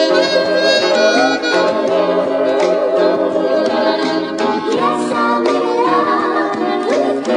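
Background music with held notes and a few sliding pitches in the melody.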